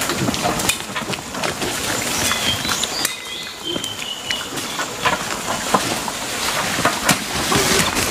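Rustling of leafy undergrowth as it is walked through and pulled up, with wild boars grunting as they forage and a few short, high bird chirps a couple of seconds in.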